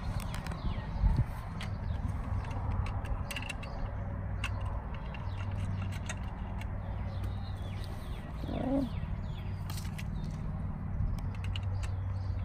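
Faint scattered clicks and taps as the plastic index plate of a gas meter is handled and fitted by hand, over a steady low hum, with a few faint bird chirps and one short bird call about eight and a half seconds in.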